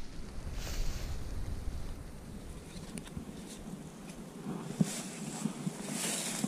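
Wind gusting over the microphone, with light rustling and a sharp click about five seconds in.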